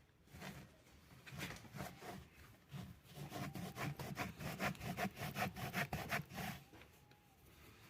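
Back-and-forth scraping strokes by hand, a few spaced strokes at first, then a quick run of about four a second that stops about six and a half seconds in.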